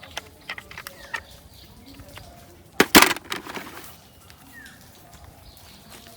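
Scattered clicks and a short, loud rustling clatter about three seconds in. Faint bird chirps are heard in the background.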